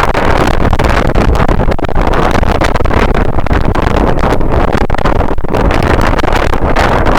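Strong wind buffeting the microphone: a loud, unbroken, rumbling rush that rises and falls in gusts.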